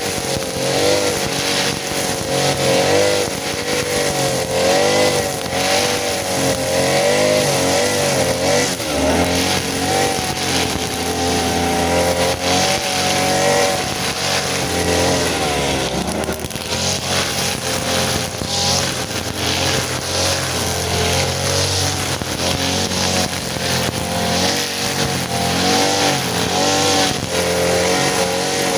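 Small petrol engine of a grass cutter running hard, its pitch rising and falling as the throttle is worked. It dips and picks up again twice, with a rough hiss and rapid ticking from the cutting over the top.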